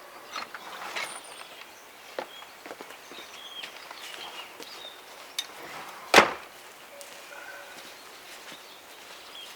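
Scattered footsteps and small knocks on wet ground, with one sharp knock about six seconds in.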